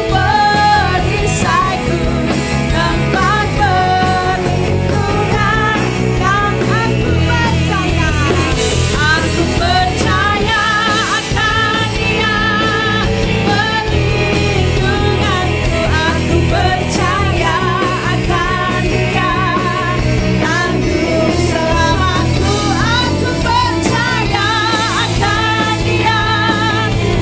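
Worship song sung in Indonesian by two women on microphones, backed by a live band with electric guitar and drums.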